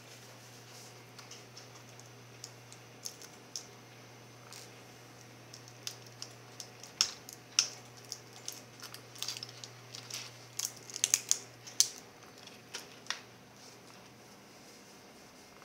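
Irregular sharp clicks and taps of small plastic and metal parts of an Acer Aspire One netbook being handled during disassembly. The clicks are busiest in the middle, over a low steady hum that stops near the end.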